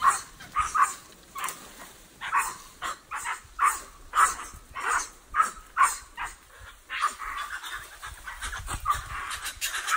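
White-faced capuchin monkeys giving a rapid series of short, sharp bark-like alarm calls, about two a second, as they mob a boa constrictor.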